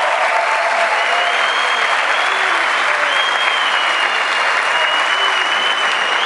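Audience applauding steadily, with a thin high tone held over the clapping.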